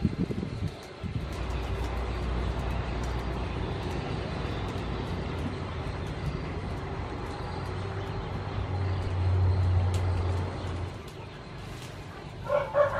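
A motor vehicle's engine drones steadily, swells to its loudest about nine to ten seconds in, then dies away about a second later. A brief thump comes at the very start.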